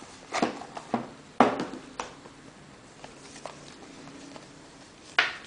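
Cardboard and molded-tray packaging being handled by hand: a few light knocks and clicks spaced about half a second apart in the first two seconds, then a short rustle near the end.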